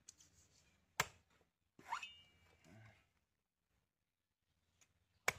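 Two sharp knocks about four seconds apart: a cleaver chopping into the husk of a green coconut. A short rising squeak comes between them.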